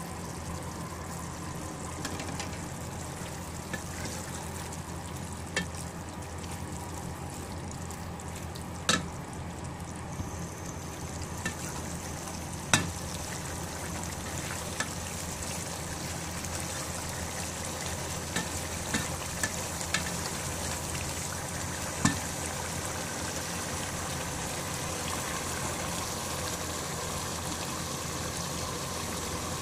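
Diced gourd curry simmering and sizzling in a pot, stirred with a spoon that scrapes and knocks sharply against the pot several times, over a steady low hum.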